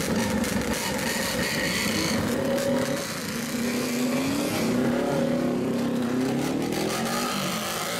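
Several old motorcycles with straight-pipe exhausts running loudly, revved up one after another as each pulls away, their engine pitch rising in repeated climbs.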